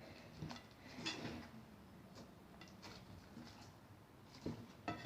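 Hands kneading and squeezing sticky slime mixed with lipstick and blush, giving faint, irregular sticky clicks and squelches, a little stronger near the end.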